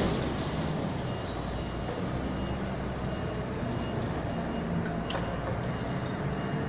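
A steady low engine rumble with a constant hiss over it.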